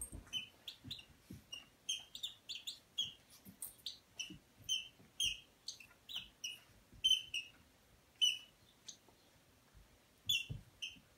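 Squeaky dog toy squeaking in short, high chirps, about two a second, as the dogs chew and tug at it. The squeaking stops for a moment, then comes twice more near the end.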